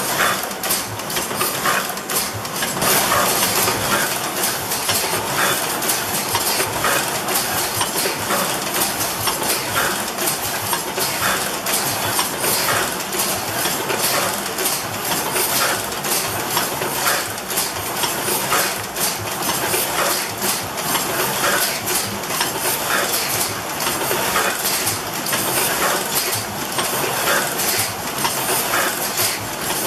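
Several Heidelberg platen letterpress presses running together in a steady mechanical clatter, with a repeating clack a little more than once a second as each press cycles.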